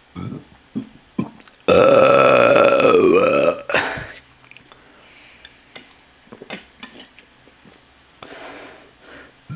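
A long, loud burp lasting about two seconds, its pitch dipping and recovering near the end, with a few short sounds before it and a brief burst right after.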